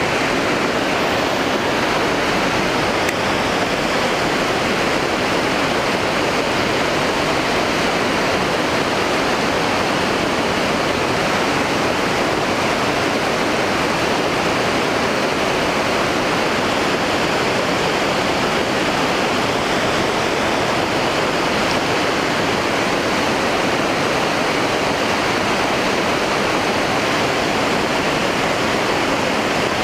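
Steady rush of water pouring over a river dam's spillway.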